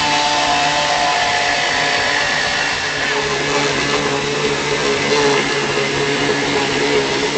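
Corded electric chainsaw running steadily with a constant motor whine as it cuts into the wooden cheek block of a Hammond organ keyboard.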